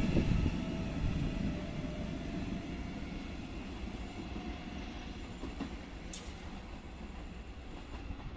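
A Trenord ETR521 'Caravaggio' double-deck electric train running away down the line, its sound fading steadily as it recedes. There is one short, sharp click about six seconds in.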